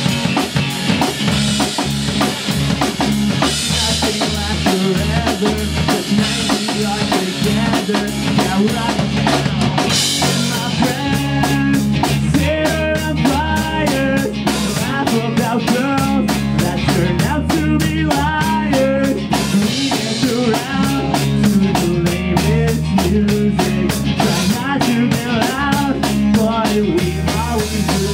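Live pop-punk band playing loudly: a full drum kit with busy snare, bass drum and cymbals, over electric bass and distorted guitars. A wavering melody line comes in on top about ten seconds in.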